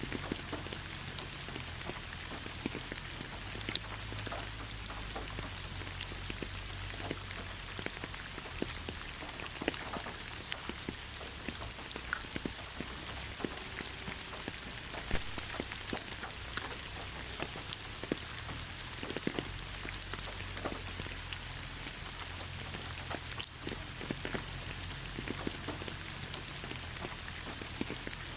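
Steady rainfall: an even hiss of rain with many individual drops landing as sharp ticks scattered throughout.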